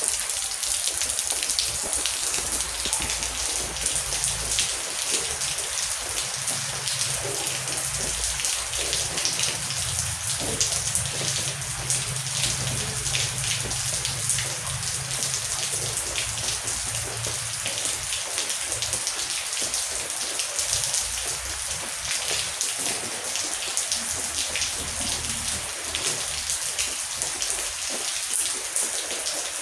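Heavy rain pattering steadily on surfaces, a dense hiss full of individual drop ticks. A low rumble of distant thunder runs under it through the first half.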